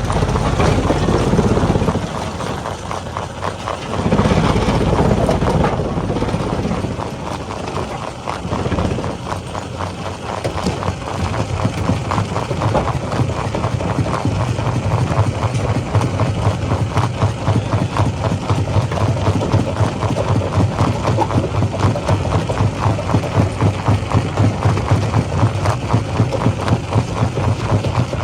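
Heavy rock-crushing machinery at work: a steady engine drone with loud rumbling in the first few seconds, then an even, fast pounding of about two to three beats a second from about eleven seconds in.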